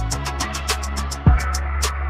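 Background music with a steady beat: ticking hi-hats, bass and kick drum under pitched instruments.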